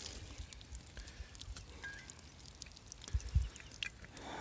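Faint outdoor ambience with a few brief high chirps and a couple of low thumps about three seconds in.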